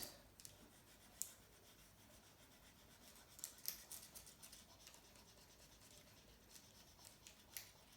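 Faint scratching of a marker coloring on paper, with a few light ticks as the tip moves.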